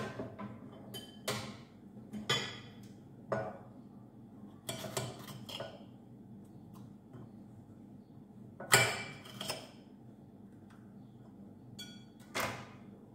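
A kitchen knife and vegetables clinking, tapping and scraping on a ceramic plate as green peppers and a green onion are trimmed and cut. The noises come in irregular short bursts, with the sharpest clatter about two-thirds of the way through.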